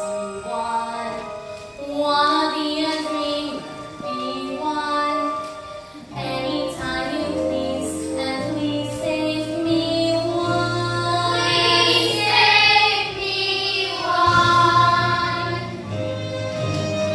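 Children's voices singing together over a musical accompaniment, a song from a stage musical; a bass line enters about six seconds in.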